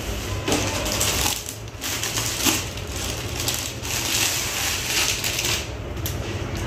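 Crinkling and rustling of a packed sari being taken out and unfolded: irregular bursts of rustle coming and going for several seconds.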